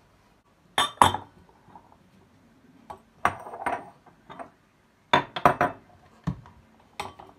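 Glassware and a plastic strainer knocking and clinking as they are moved about and set down on a stone countertop, while a cloth-lined strainer is set up over a glass bowl: a series of sharp knocks in small clusters.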